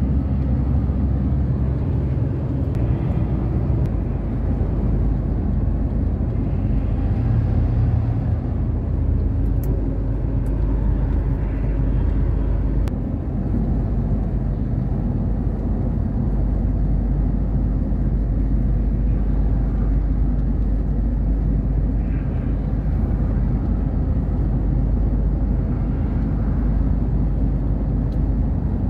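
Truck driving at highway speed, heard from inside the cab: a steady low rumble of engine and road noise.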